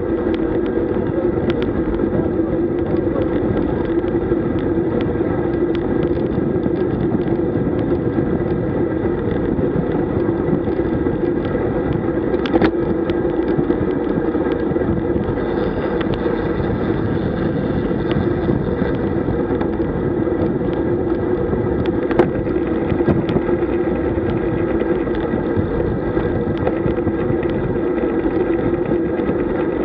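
Steady wind and road noise on a road bike's mounted camera while riding at about 25 to 35 km/h, with a couple of sharp clicks, one about halfway through and one about two-thirds through.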